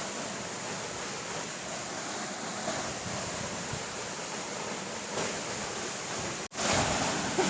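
Steady rushing of a waterfall. The sound drops out for an instant about six and a half seconds in and comes back louder.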